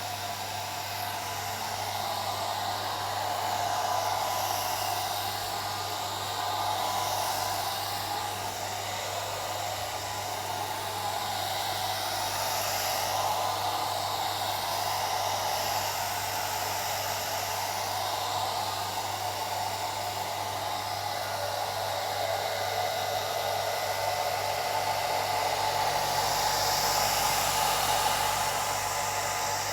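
Old hair dryer running continuously: a steady blowing whoosh of its fan with a low motor hum underneath, the loudness swelling and easing slightly now and then.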